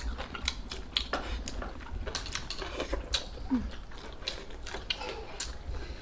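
Wooden chopsticks tapping and scraping in a ceramic rice bowl while eating, many short irregular clicks.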